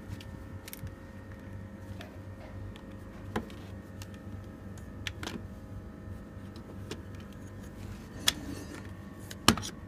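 Tecumseh CAJ4519Z hermetic refrigeration compressor running with a steady hum but not pumping, a failure the owner thinks is mechanical. A few sharp clicks and knocks sit over it, with two louder ones near the end.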